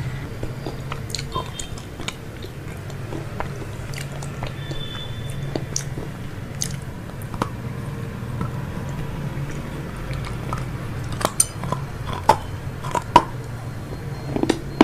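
Close-miked eating: chewing and crisp crunching bites of fried chicken, with a run of sharper, louder crunches near the end. A steady low hum runs underneath.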